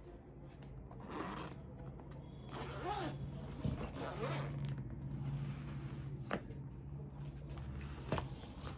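A tool-kit package being opened by hand: a few short rasping, zipper-like strokes of packaging being pulled open, with several sharp clicks, over a steady low hum.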